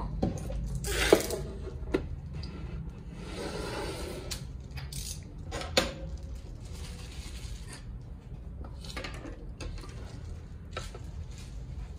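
Hard plastic parts of a 1:6 scale figure's display base and stand post being handled and fitted together on a desk: a sharp knock about a second in, smaller clicks near two and six seconds, and rustling and scraping between.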